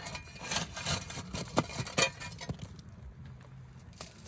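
Hot coals being scraped up and put onto a skillet over a campfire: metal scraping and clinking, with a run of sharp knocks in the first half and one more click near the end.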